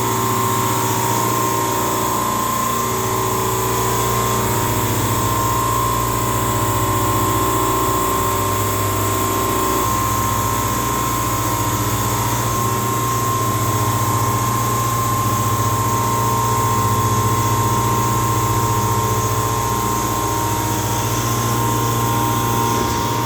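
Copeland refrigeration compressor in an HVAC unit running steadily while the system is charged with refrigerant gas, with a constant low hum and a steady higher whine.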